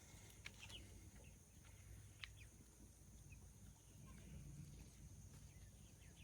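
Near silence: faint outdoor ambience with a low steady rumble and a few faint short bird-like chirps and clicks.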